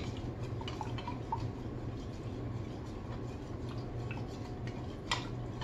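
A spoon stirring wine yeast in a small clear cup: faint light ticks and scrapes, with one sharper clink about five seconds in, over a low steady hum.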